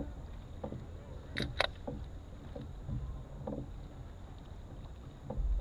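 Canoe being paddled on a calm river: soft paddle and water sounds over a low rumble, with a few faint knocks and two quick sharp knocks about one and a half seconds in.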